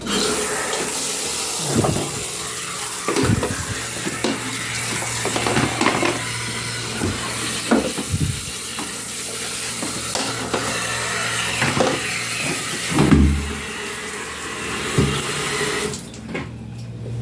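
Water running steadily from a tap, with scattered knocks and clunks, cutting off about a second before the end.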